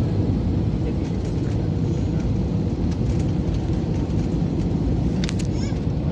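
Airliner cabin noise from a window seat during landing: a steady low rumble of the engines and airflow over the Airbus A320-family jet, with a few faint clicks about five seconds in.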